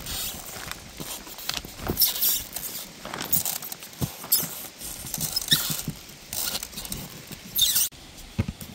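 Nubbed foam insulation panels squeaking and crackling in irregular bursts under shoes as radiant-heating tubing is stepped into place between the nubs.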